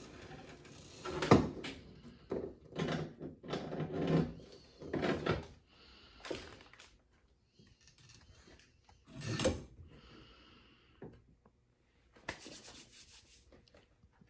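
Irregular rubbing and knocks as a pull-down kitchen faucet and its supply hoses are worked down through the sink's mounting hole, with a sharp knock about a second in and another about nine seconds in.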